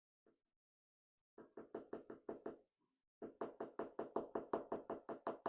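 Rapid knocking on a Medeco lock cylinder to work out key pins that are sticking: a run of about eight quick knocks, a short pause, then a longer run of a dozen or so, about seven a second.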